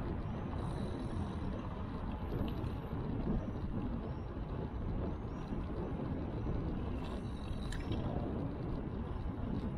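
Steady low rumble of wind buffeting the microphone of a bicycle-mounted action camera while riding, mixed with road noise.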